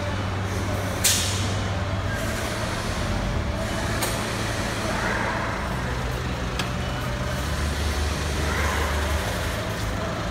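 Steady car service-workshop noise: a low hum of machinery and engines, with a short, sharp hiss like compressed air about a second in and a couple of faint clicks later.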